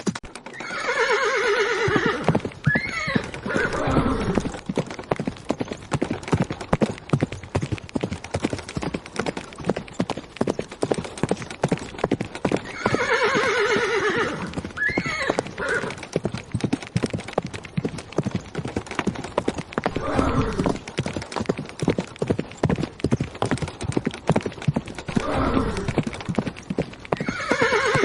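Horse hooves beating fast and steadily at a gallop, with a horse whinnying about a second in, again about halfway through and again at the end, and shorter, lower calls in between.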